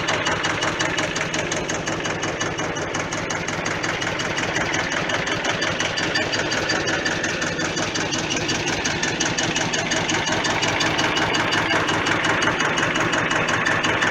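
Small Hinomoto compact tractor running steadily with its sickle bar mower working, a fast, even clatter over the engine.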